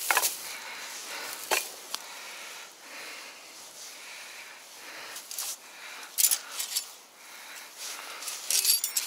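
Rusty steel body-grip beaver trap (KP-250) being handled: its metal jaws and springs clink and rattle, with a few sharp knocks and rustling of dry grass and leaves. Near the end comes a brighter burst of metallic clinking.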